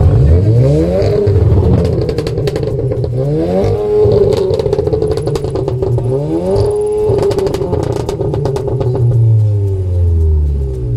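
Volkswagen Golf engine revved through its quad exhaust about three times, the pitch climbing and dropping each time, with sharp crackles from the exhaust between the revs; it settles to a steadier low note near the end.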